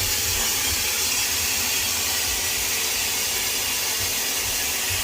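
SYLPH high-speed hair dryer with a 112,000 RPM brushless motor running steadily: an even rush of blown air with a strong high hiss and a faint low hum beneath.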